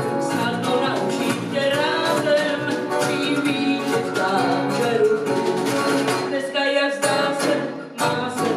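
Live small-band jazz with a Latin feel: a female voice singing over electric bass guitar and drums. Near the end the band drops out briefly, broken by a few sharp hits.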